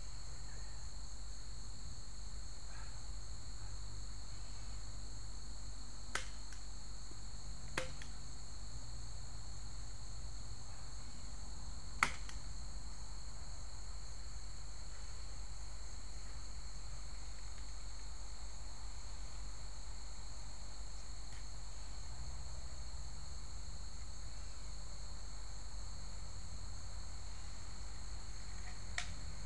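Steady chorus of crickets, a continuous high-pitched trill on two pitches, over a low steady hum. A few sharp clicks or knocks come through it, the loudest about twelve seconds in.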